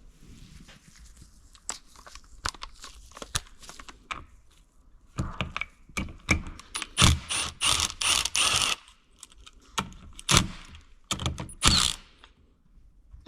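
Ratchet wrench clicking in short runs, with metal tools and parts knocking. The ratcheting is loudest and densest between about five and twelve seconds in.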